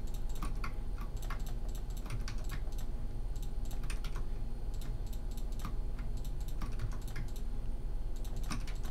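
Computer keyboard keys clicking irregularly, a few keystrokes a second, as shortcuts are pressed, over a faint steady electrical hum.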